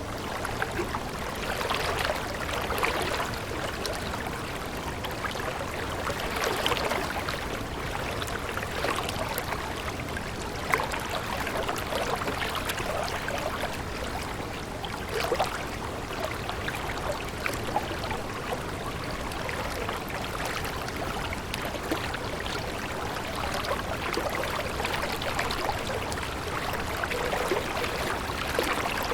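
Stream water trickling and babbling steadily, with many small quick splashes.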